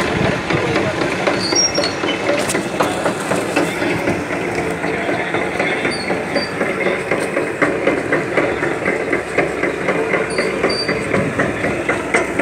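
Motor-driven sugarcane crusher running, its rollers and drive making a steady, rapid, even clatter.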